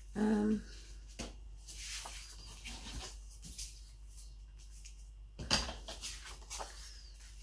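Paper being handled on a craft table: scattered light rustles and taps, with a louder rustle about five and a half seconds in. A short hummed voice sound comes right at the start.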